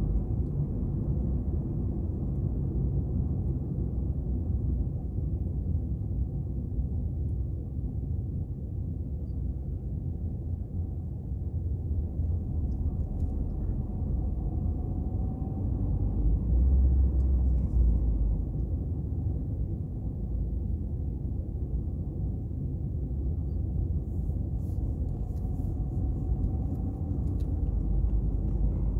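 Steady low rumble of a car's engine and tyres on the road, heard from inside the cabin, swelling louder for a couple of seconds about halfway through.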